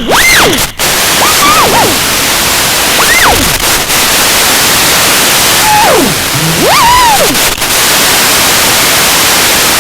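FPV quadcopter motors whining, the pitch swooping up and down with each burst of throttle, over a loud steady rush of wind and prop noise. The swoops come several times in the first few seconds and again about two-thirds of the way through, after which only the steady rush remains.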